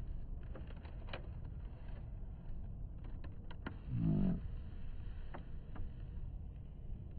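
Wind rumbling on the microphone, with scattered small crinkles and clicks of a paper food wrapper being handled while a wrap is eaten. About four seconds in, a brief low hum, like a person's closed-mouth "mm".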